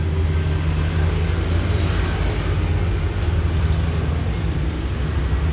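A steady, loud, low mechanical hum with a faint hiss above it, unchanging throughout.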